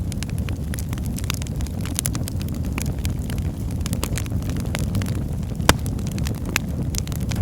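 Wood fire crackling in a fireplace: a steady low rumble of flames with irregular sharp pops and snaps, one louder pop near the end.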